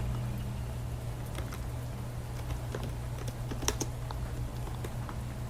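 Computer keyboard typing, light irregular key clicks over a steady low hum.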